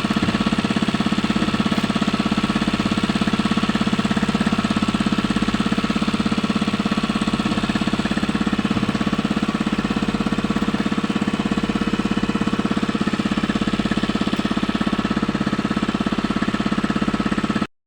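Small engine running steadily with a fast, even pulse, cutting off abruptly near the end.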